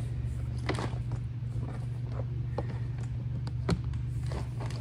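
Scattered light clicks and taps of hands handling a strip of rubber window glazing at a boat's window frame, over a steady low hum; the sharpest click comes a little before the end.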